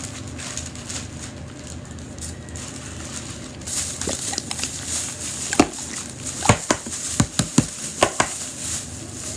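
Jiggly slime squelching as a plush toy is pushed and stirred through it, with a run of sharp wet pops and slaps from about halfway in.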